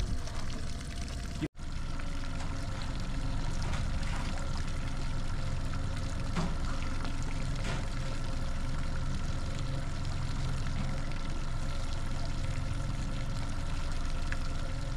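Boat trolling under outboard power: the motor's steady hum under water churning and splashing in the wake behind the stern. A brief dropout about a second and a half in, then it runs on steady.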